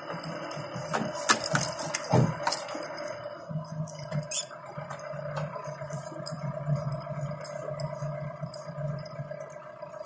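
Vehicle engine running at a steady low hum, heard from inside the cabin while driving, with loose rattles and sharp knocks, most of them in the first couple of seconds.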